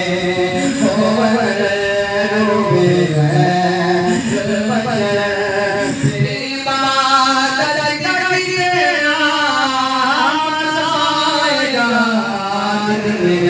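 A man's voice singing a devotional chant in long, gliding held notes.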